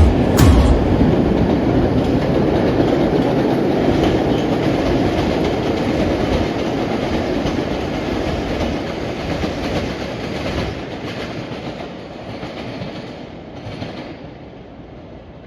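MBTA train rolling along the rails, its running noise fading steadily as it draws away.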